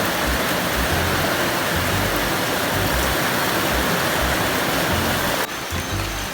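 Rain falling steadily, an even hiss of heavy rainfall, which drops suddenly to a quieter hiss about five and a half seconds in.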